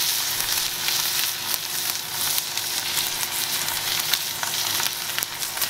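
Wagyu steak sizzling hard in a hot cast-iron skillet over live coals, a steady hiss dotted with scattered pops. This is the final high-heat sear of a reverse sear, about 30 seconds on the second side after smoking to 110°F internal.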